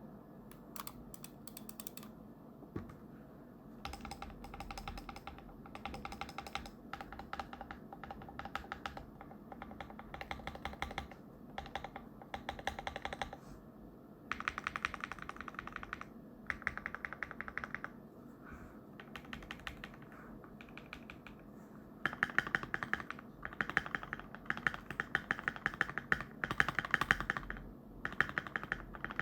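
Keychron Q1 mechanical keyboard with Krytox-lubed WS Aurora Pink switches and Akko ASA keycaps being typed on: bursts of rapid keystrokes with short pauses between them. The typing gets louder about three quarters of the way in.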